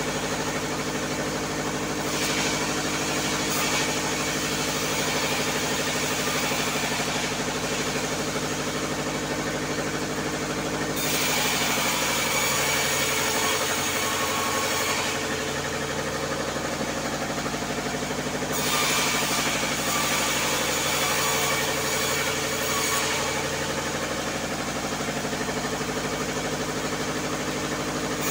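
Engine-driven vertical bandsaw mill running steadily while it saws a log lengthwise. A loud hiss of the blade in the wood comes and goes as the log is pushed through, and the engine pitch dips slightly under load.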